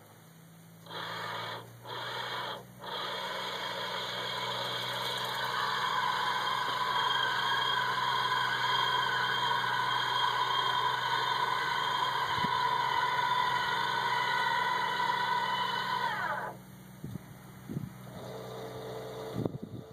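Bruno electric crane motor whining as it hoists a wheelchair: two short bursts, then a steady run of about fourteen seconds that winds down with a falling pitch. A low steady hum runs underneath, and a few small knocks follow near the end.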